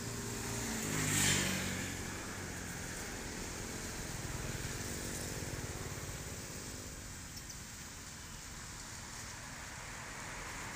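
A motor vehicle passing on a nearby road: its engine is loudest about a second in, then fades away over the next several seconds, leaving a steady outdoor background hum.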